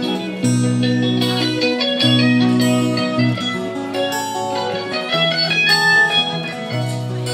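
Live band playing an instrumental break without singing: strummed acoustic guitar, electric guitar and mandolin over held low notes in a country ballad.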